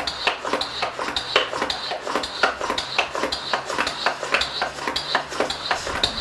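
Hand pump plunger of a Streetwize portable pressure washer being worked up and down to build pressure in the water tank, clicking in a steady rhythm of about three a second.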